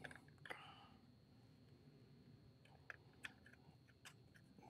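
Near silence with a handful of faint plastic clicks and taps, as a truck door trim panel is handled and pressed onto its clips.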